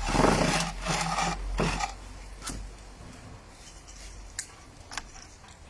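Leafy vegetable stalks being handled as the leaves are picked off: rustling and rubbing for the first two seconds, then a few light sharp snaps.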